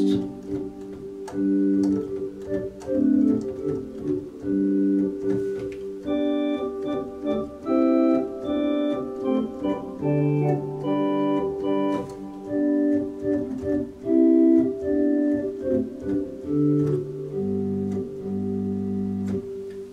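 Viscount Sonus 60 Physis digital organ playing a slow passage on the Great's soft 8 ft and 4 ft flute stops, one note held on throughout under chords that change about every second. Lower bass notes come in during the second half.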